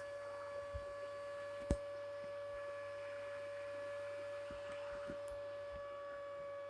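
Vacuum cleaner motor running steadily, a constant high whine over a low hum, with a single sharp click about two seconds in.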